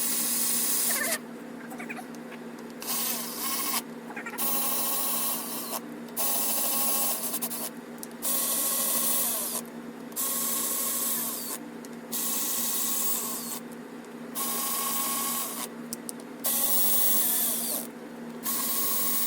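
Cordless power tool running 12 mm bolts down in about ten short bursts of a second or so, with brief pauses between them. Each burst has a whine that rises and falls as the bolt spins in, snugging the bolts over freshly applied gasket maker.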